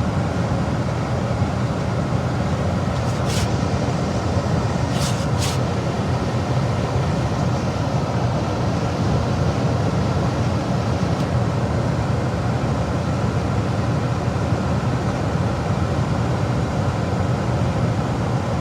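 Gas furnace running, a steady rushing hum, with a few short ticks about three and five seconds in.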